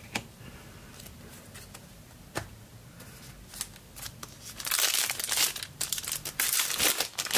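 A trading-card pack wrapper crinkling and tearing as it is opened, over the last three seconds, after a few faint clicks of cards being handled.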